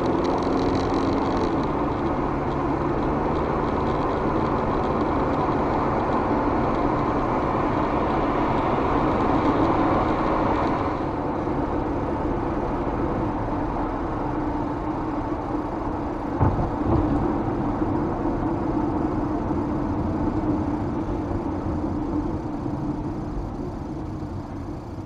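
Steady road and engine noise inside a moving car, as picked up by a dash cam's built-in microphone: a low rumble with tyre hiss. The noise changes character about eleven seconds in, and there is a single short knock a few seconds later.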